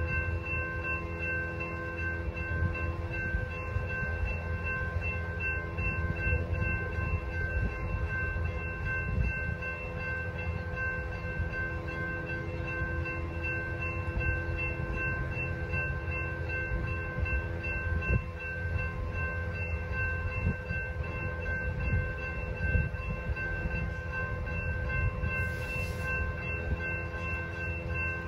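Railroad grade-crossing warning bell ringing on and on with an even, repeating tone, over a steady low rumble.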